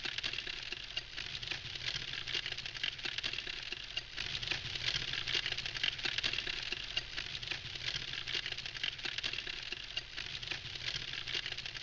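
Wood campfire burning, crackling steadily with a dense run of small pops and ticks.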